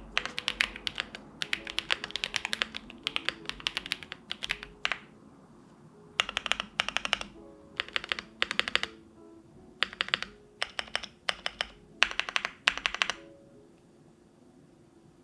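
Typing on an Owlab Jelly Epoch custom mechanical keyboard with lubed White Jade switches, a polycarbonate plate and GMK Dandy keycaps: a fast, continuous run of keystrokes for about five seconds, then several short bursts of rapid keystrokes, stopping about two seconds before the end. Soft background music plays underneath.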